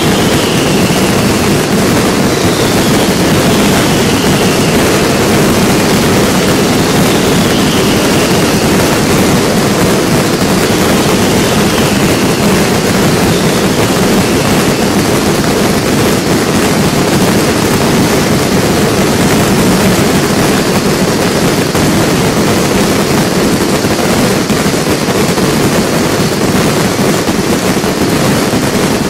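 Fireworks finale: a dense, continuous barrage of shell bursts merging into one steady, loud roar, with a few high whistles falling in pitch in the first half.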